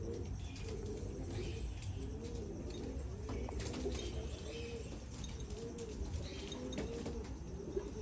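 Pigeons cooing over and over, several low rolling coos overlapping without a break.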